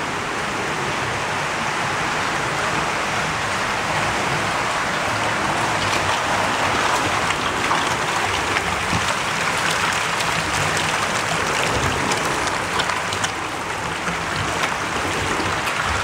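Water splashing and churning in concrete koi tanks, a steady rain-like hiss, with small splashes from densely crowded koi at the surface; a little louder around the middle.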